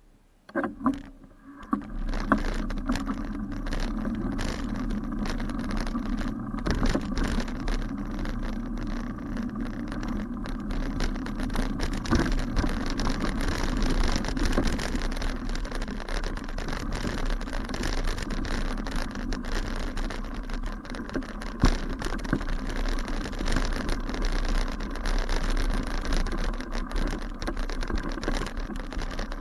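Bicycle riding over a bumpy grass track, its frame and the mounted camera rattling, with steady wind and road noise on the camera microphone. A couple of sharp knocks about a second in, then a steady ride noise with frequent small knocks.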